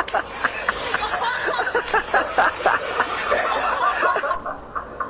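A person laughing in quick, repeated bursts of giggling.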